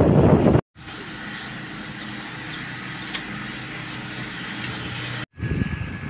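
Road and wind noise from a moving vehicle, a loud low rumble that cuts off abruptly about half a second in; then a much quieter steady background hum with a few faint tones, ending in another abrupt cut about five seconds in.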